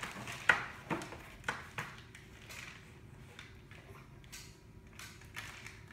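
Small plastic Play-Doh tubs knocking against each other and the table as they are taken out of the box and stacked: a few sharp knocks in the first two seconds, the loudest about half a second in, then fainter handling with a couple more light knocks near the end.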